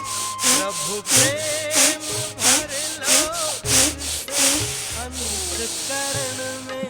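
Bhastrika pranayama: forceful, rhythmic breaths through the nose, about one and a half a second, then one long drawn breath from about five seconds in. Soft instrumental music plays underneath.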